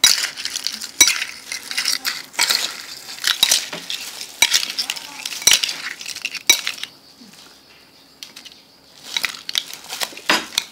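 Metal spoon stirring and tossing pickled crabs in their sauce in a bowl: wet scraping of shells with sharp clinks of spoon against bowl, about once a second. The strokes pause for a couple of seconds about seven seconds in, then resume.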